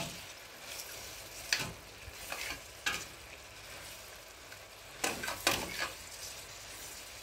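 A metal spoon stirs tripe and chopped tomatoes frying in oil in a stainless steel pot, with a steady sizzle. The spoon scrapes and knocks against the pot several times.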